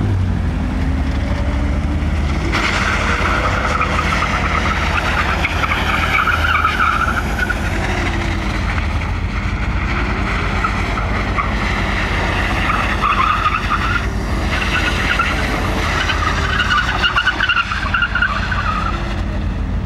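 BMW cars drifting: tyres squealing in long, wavering stretches that start about two and a half seconds in, over a steady engine drone whose revs rise and fall.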